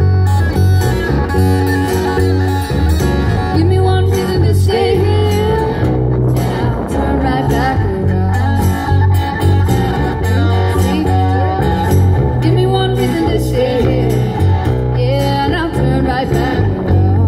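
Small live band playing a song: a woman singing lead into a microphone over guitars, with a steady bass line underneath.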